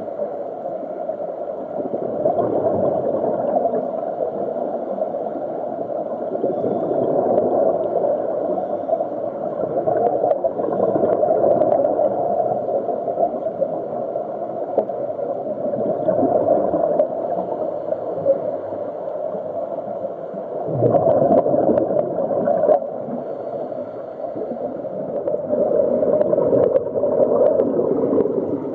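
Scuba divers' exhaled air bubbling from their regulators, heard underwater as a muffled gurgling rush that swells louder now and then.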